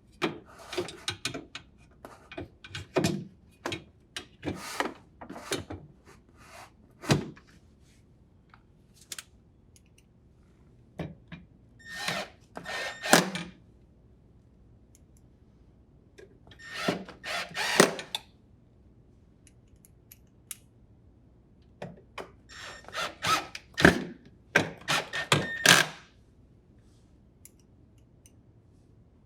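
Drill driver with a Phillips bit running in several short bursts as it drives in the bolts that hold a refrigerator freezer door's connector rail. Between the bursts come sharp clicks and knocks of metal parts and fasteners being handled.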